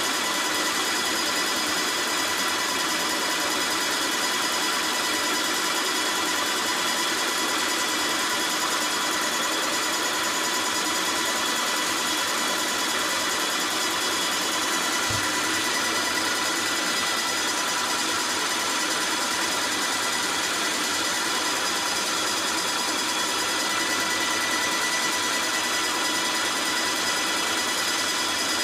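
Graco airless paint sprayer running steadily, its pump motor giving a constant whine while the spray gun sprays a fine stream of fluid into a bucket with a steady hiss.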